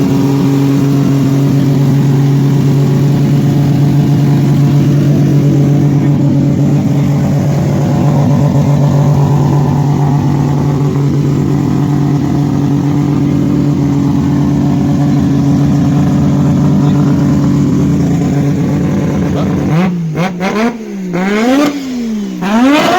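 Three-rotor rotary engine held at a steady raised speed, then blipped up and down in a quick series of throttle revs near the end.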